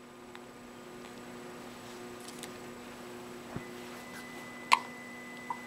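A single short, sharp hiccup about three-quarters of the way through, with a fainter click just before the end, over a steady electrical hum in a small room.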